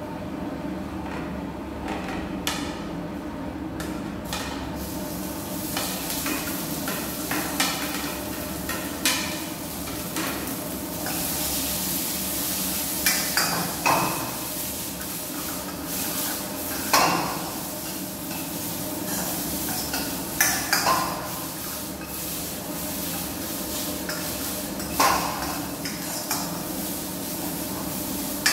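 Stir-frying in a wok over a gas burner: a metal ladle and spatula clank and scrape against the pan at irregular intervals while food sizzles. The sizzle sets in about four to five seconds in, over a steady background hum.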